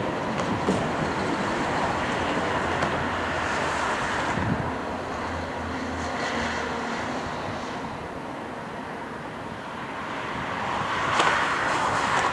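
Distant twin-engine jet airliner on approach, a steady engine roar mixed with wind on the microphone. A brief knock about eleven seconds in is followed by a louder swell.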